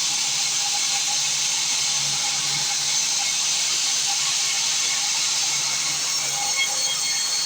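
Sawmill saw machinery running steadily: a constant loud hiss over a low hum.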